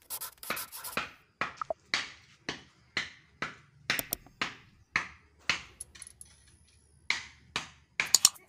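Footsteps at a walking pace, about two steps a second, with a short scuff on each step.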